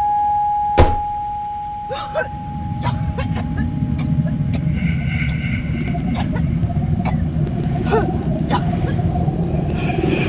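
Mini Cooper engine running with a steady low rumble. The car door shuts with a loud clunk about a second in, followed by scattered light clicks and knocks from inside the car.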